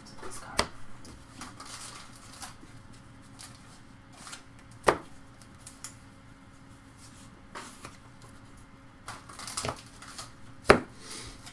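Baseball trading cards being handled: a stack of card stock flipped through with scattered soft taps and slides, and a few sharper knocks as cards are set down on the table, the loudest about five seconds in and near the end.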